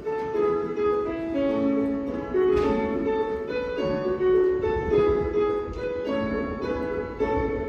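Station departure melody playing over the platform speakers: a keyboard-like chime tune of stepped notes, the signal that the train is about to leave.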